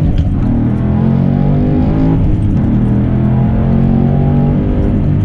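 Car engine heard from inside the cabin, pulling under acceleration in a manual-transmission car. The pitch changes as it pulls, with a break about two seconds in where a gear change falls, then it pulls steadily again.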